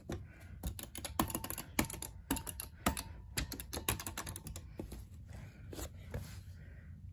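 Elevator push buttons on a lit button box being pressed one after another: quick, irregular sharp clicks, several a second.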